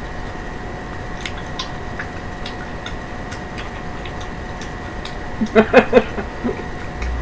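Light scattered clicks of chopsticks picking food from a plastic container, over a faint steady hum. About five and a half seconds in comes a short burst of a woman's laughter.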